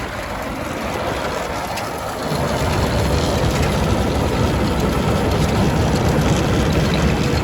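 Farm tractor running with an ear corn picker: a steady machinery noise, its low rumble growing louder about two seconds in.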